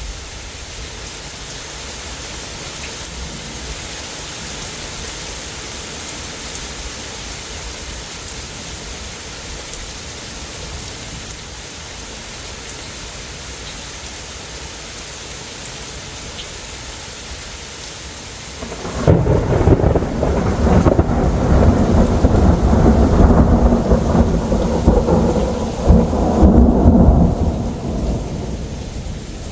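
Steady heavy rain hissing, then about two-thirds of the way in a loud thunder rumble breaks in suddenly and rolls for about nine seconds before fading under the rain.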